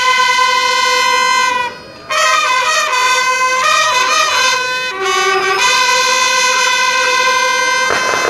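Marching band's brass horns playing a fanfare: long held notes, a short break about two seconds in, then a run of shorter notes and another long held note. A noisy crash comes in at the very end.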